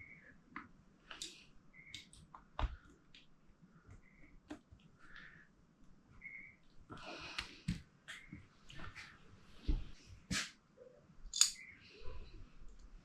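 Faint clicks, light taps and brief scrapes of small metal carburettor parts and hand tools being handled during carburettor reassembly, with a few sharper knocks spread through.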